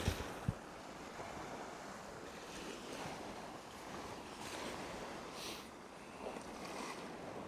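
Small sea waves washing along the shore under a steady breeze, with soft swells of hiss as they break. Two short low thumps near the start.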